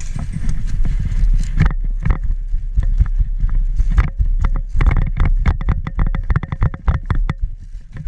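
Footsteps and equipment rattle of an airsoft player on the move, a steady stream of thumps and clicks, with a quicker run of sharp clicks in the second half.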